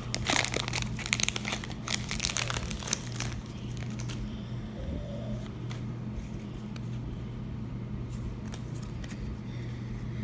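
Foil wrapper of a Pokémon TCG Team Up booster pack crinkling and tearing as it is ripped open by hand, a dense crackle for the first three or four seconds. Then only a few soft clicks of the cards being handled, over a steady low hum.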